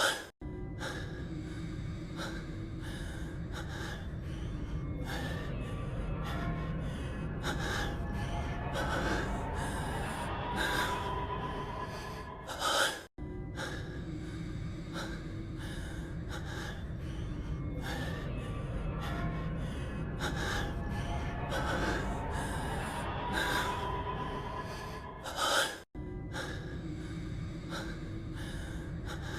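A man's heavy breathing and gasps, voice-acted for an anime character, with background music underneath. The same short clip repeats in a loop about every thirteen seconds: each pass ends on a louder gasp, then a brief silent break before it starts again.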